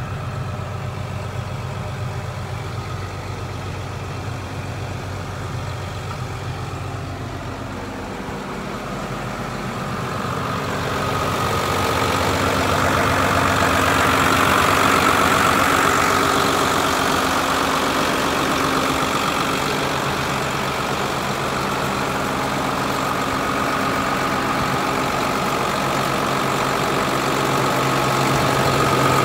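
2000 New Holland 8970 tractor's turbocharged diesel engine idling steadily. It is muffled at first as heard inside the cab, then louder and clearer from about ten seconds in, beside the open engine bay.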